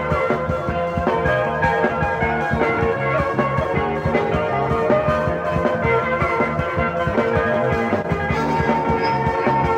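Instrumental passage of a psychedelic rock song with a steady beat.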